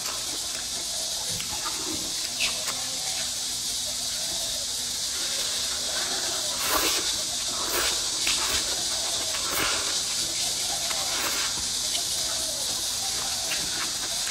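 A person slurping and chewing thick rice noodles, with a few loud slurps about halfway through, over a steady high hiss.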